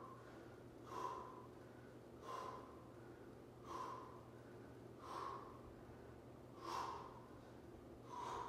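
A man breathing hard in rhythm with banded push-ups: six short, heavy breaths about a second and a half apart, over a faint steady hum.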